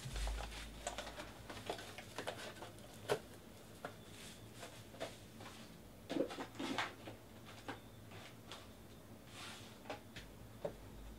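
Scattered light clicks and taps with small handling noises, louder knocks about three seconds in and again around six to seven seconds.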